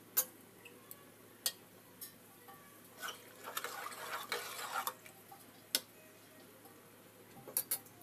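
A spoon clinking against the side of an aluminium pot, a handful of sharp single clicks spread out, with a few seconds of water being stirred and sloshing in the middle.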